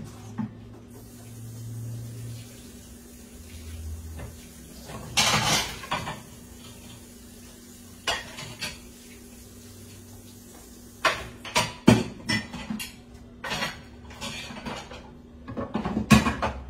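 Dishes, pans and cutlery clattering and clinking as they are picked up and set down on a kitchen counter: irregular knocks, sparse at first and busier in the second half, over a steady low hum.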